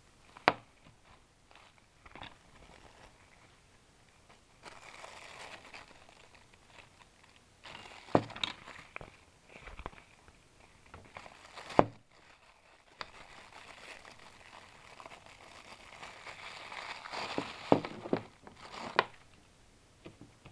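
Clear plastic wrapping crinkling in several bursts as a wristwatch is unwrapped by hand, with several sharp knocks in between that are louder than the rustling.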